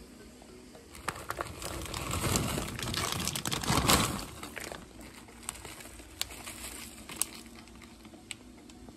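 Something crinkling and rustling as it is handled, with scattered light clicks and taps. It builds to its loudest about four seconds in, then thins out to occasional clicks.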